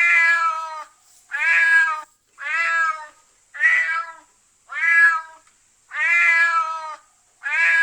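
A cat meowing over and over, about one meow a second, seven meows in all, each one drawn out.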